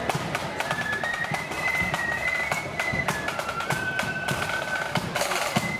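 Marching flute band playing: flutes in unison carry a high melody that steps from note to note, over rapid snare drum strokes and heavy bass drum beats.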